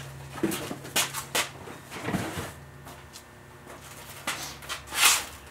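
Scattered knocks and rustles of a cardboard box being carried and handled, with the loudest rustle about five seconds in, over a steady low hum.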